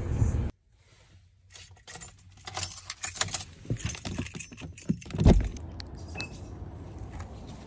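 A bunch of keys on a Mazda key fob jangling and clicking in a hand, followed about five seconds in by one loud thump, a car door shutting.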